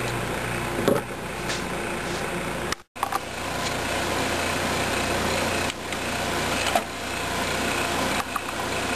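Steady mechanical whirring hum, like a fan or small motor, broken by a brief cut-out about three seconds in.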